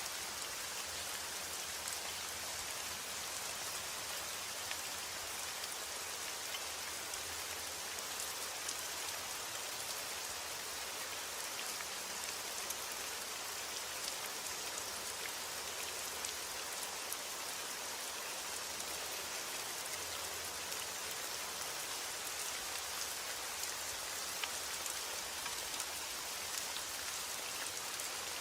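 Heavy rain falling steadily, an even hiss with scattered sharp drop ticks and no thunder.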